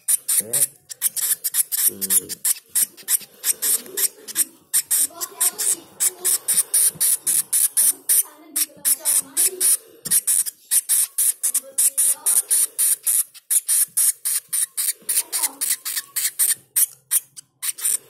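Hand-fed nestling birds giving rapid, rhythmic raspy begging calls, several hissing strokes a second.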